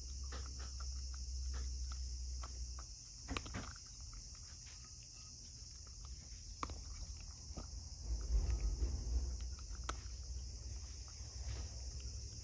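A cat eating from a bowl: irregular runs of small clicks and crunches as it chews dry kibble and wet food, with a few sharper ticks. A low rumble swells at the start and again, loudest, about eight seconds in.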